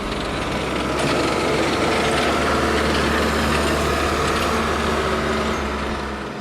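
Crane forklift's engine running: a dense, steady mechanical noise over a low hum that swells about a second in and fades out near the end.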